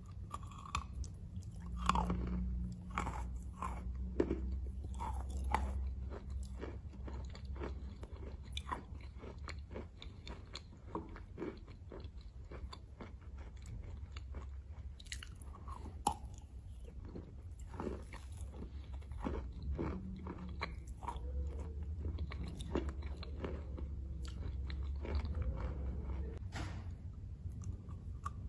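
A person biting into a block of chalk and chewing it: a dense run of sharp crunches and crumbling clicks, with louder snaps about two seconds in and again around sixteen seconds in.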